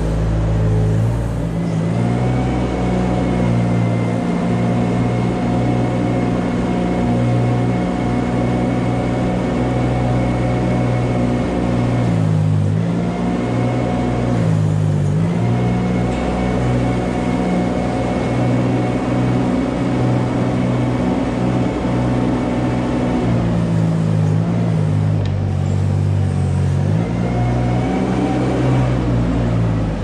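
Compact farm loader's engine running steadily at working revs, with a steady whine from the drive over it; the revs dip briefly a few times as the machine slows and picks up again.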